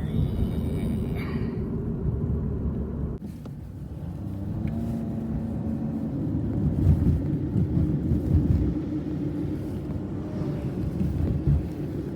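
Steady low rumble of a running motor vehicle, with a brief drop in level about three seconds in.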